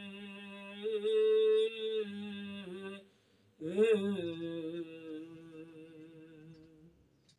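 A man's voice singing a manqabat unaccompanied, holding long drawn-out notes. He breaks off for a breath about three seconds in, then starts a new phrase that slowly fades away near the end.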